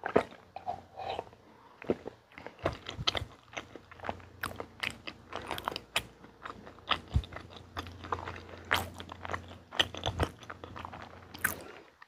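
Close-miked mouth sounds: a swallow of drink right at the start, then irregular wet clicks and smacks of chewing and swallowing the last mouthful.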